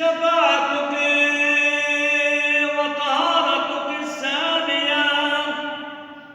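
Unaccompanied sung Arabic liturgical chant: a single voice holds long notes, with ornamented turns in pitch about a second in and again around three and four seconds, then fades out near the end.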